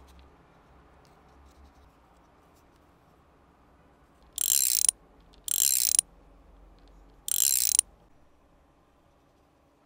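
Wooden ratchet-and-pawl of a laser-cut plywood model's spring motor clicking rapidly as the mechanism is turned, in three short bursts of about half a second each.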